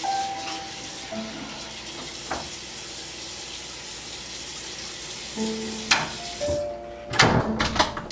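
Tap water running into a bathroom sink under a sparse film score of low held notes. Near the end come several loud, sharp knocks in quick succession.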